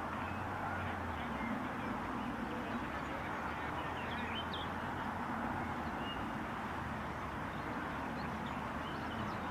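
Steady outdoor background noise with a few faint, short bird chirps around the middle.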